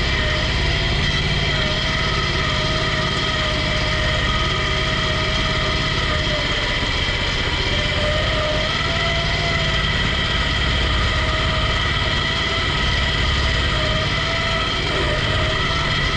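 A 21-horsepower lawn-tractor engine on a motorized couch running steadily as the couch drives along, its pitch wavering slightly now and then.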